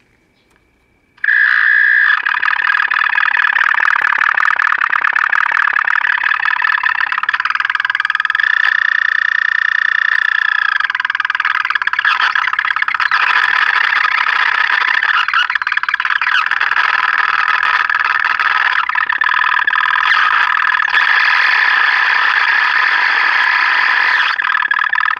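Vintage AA5 tube AM radio's speaker giving a loud, steady electronic squeal that starts about a second in, its pitch bending briefly about eight seconds in. The set was powered up with one section of its filter capacitor open, and the owner finds this unlike what a bad filter capacitor would cause.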